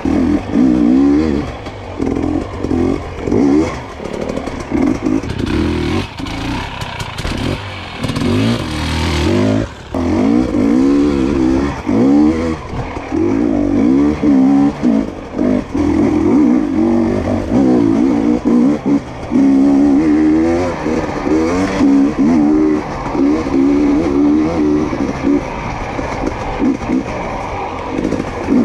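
2022 GASGAS EC250 two-stroke dirt bike engine being ridden hard, revving up and dropping back again and again as the throttle is worked on and off. A rushing hiss comes in about six seconds in and lasts a few seconds.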